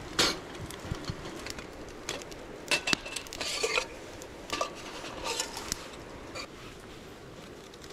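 Metal camp cookware being handled: scattered clinks and knocks, a few ringing briefly, over a steady background hiss.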